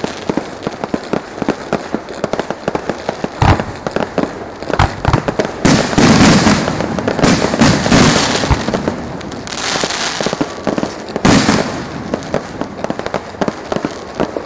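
Electrically fired fireworks going off in a dense, continuous crackle of firecracker reports. There are heavier bangs about three seconds in, a loud stretch in the middle, and two more loud flurries later on.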